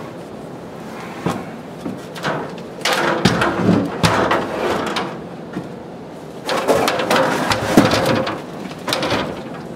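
Fiberglass stepladder being handled: knocks and clattering in two louder stretches, about three seconds in and again about seven seconds in.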